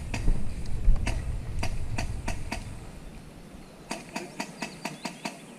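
A run of sharp, irregular clicks and snaps, about two or three a second, over a low rumble that fades out about three seconds in.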